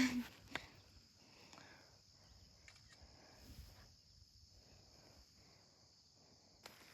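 Insects buzzing steadily outdoors, a faint even high-pitched hum, with a brief sharp sound right at the start and a small click just after.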